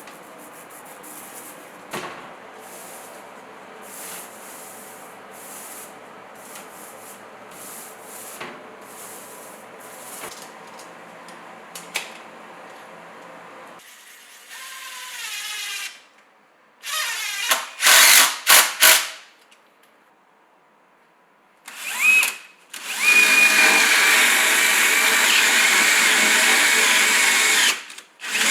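Low background noise with a few light knocks, then a power drill is triggered in several short bursts and, a few seconds later, runs steadily at high speed for about five seconds before stopping near the end.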